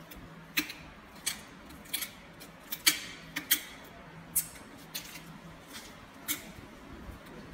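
A kitchen knife cracking and snapping through the rib bones of a large fish as its flesh is cut off the backbone: about a dozen sharp irregular cracks, a few of them louder than the rest.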